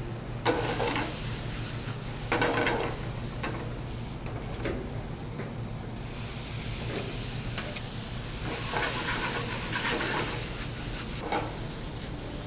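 Pasta and vegetables sizzling in a sauté pan on a gas range, with several bursts of metal clatter as the pan is stirred with tongs and tossed. A steady low hum runs underneath.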